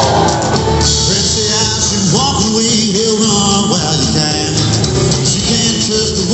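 Live country-rock band playing loud and steady: drums, electric and acoustic guitars, and a bowed fiddle, heard from within the audience in a hall.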